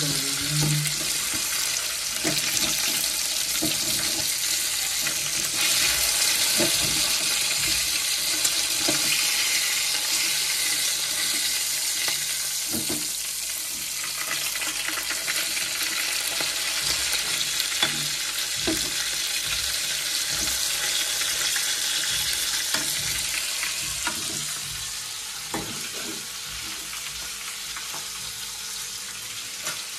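Pieces of Indian halibut sizzling as they fry in oil in a metal kadai, with a metal spatula scraping and knocking against the pan as the fish is turned. The sizzle eases somewhat about twenty-four seconds in.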